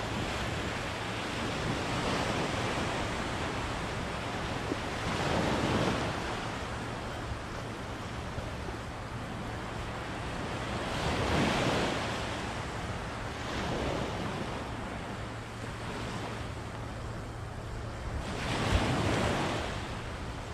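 Surf breaking on the beach, swelling in surges every few seconds, with wind on the microphone. Under it, the loosely set drag of a Shimano Nexave 4000HG spinning reel buzzes as a hooked fish takes line.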